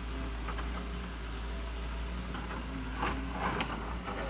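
Doosan DX140W wheeled excavator's diesel engine running steadily while it digs into a hillside, with scattered short knocks and scrapes of earth and stones, several of them about three seconds in.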